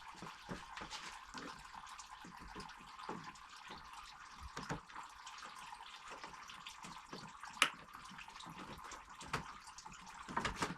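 Engine coolant trickling and dripping from the disconnected radiator hoses, with scattered light clicks and one sharper click about three-quarters of the way through.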